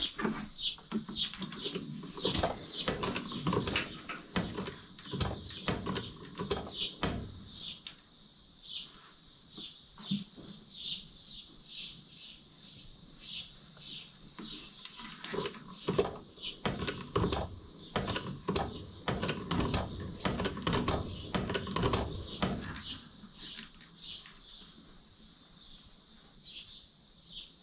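Hand pump working gear oil into a rotary cutter's gearbox: a run of short clicks and knocks, busiest in the first eight seconds and again from about ten to twenty-two seconds, then thinning out. A steady high insect chirring runs underneath.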